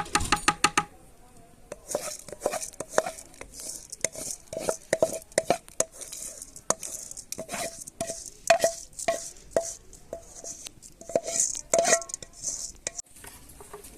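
Knife chopping on a cutting board: a quick run of sharp strikes at the start, then uneven chopping with short pauses, each strike ringing briefly.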